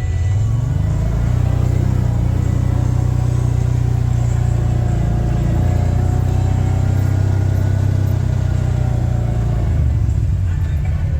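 ATV engine running under way: it picks up about a second in, holds steady with a faint whine over the engine note, and eases off near the end.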